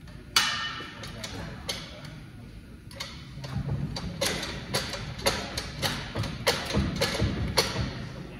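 Sharp knocks and clinks: one loud strike about half a second in, then an irregular run of them, roughly two a second, over the second half.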